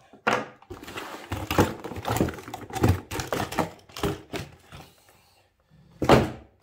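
Cardboard box and plastic packaging tray being handled and pulled apart: irregular scraping, rustling and knocking for about four seconds. Then, after a short lull, a loud thunk near the end as the RC monster truck is set down on the wooden table.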